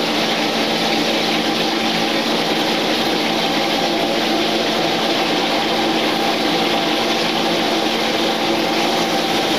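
Steady whirring hum of an electric fan, a constant hum with an even hiss over it that does not change.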